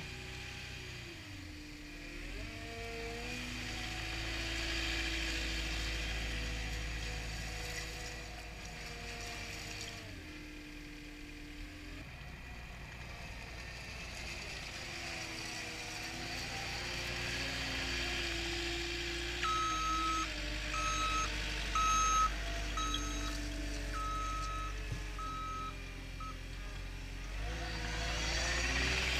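Cat 259D compact track loader's diesel engine running as the machine drives about, its engine speed rising and falling several times. Its reversing alarm beeps steadily about two-thirds of the way through while it backs up.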